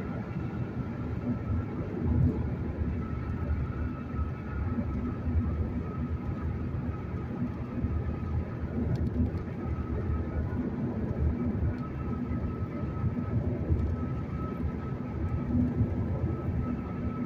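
Steady low road rumble inside the cabin of a car cruising at highway speed: tyres on concrete pavement and the engine running, with a faint steady high whine over it.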